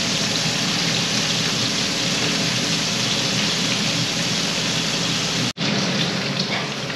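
Sheepshead fillets sizzling steadily as they pan-fry in a skillet. The sizzle cuts out for an instant about five and a half seconds in, then carries on a little quieter.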